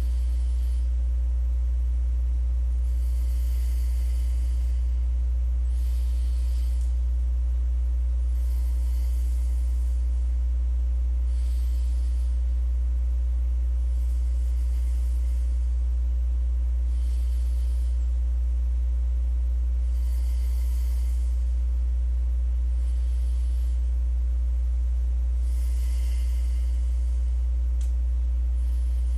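Steady low electrical hum, with faint soft breaths heard as a brief hiss every few seconds.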